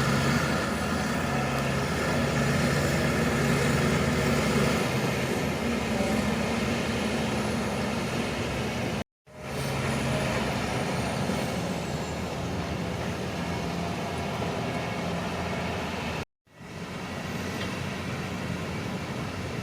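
Shantui crawler bulldozer's diesel engine running steadily while working. The sound cuts out completely twice, about nine and sixteen seconds in, and fades back in each time.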